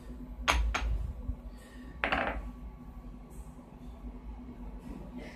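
Metal stock and milling vise being handled: a sharp metal clink about half a second in, then a brief scraping rattle about two seconds in, over a faint steady machine hum.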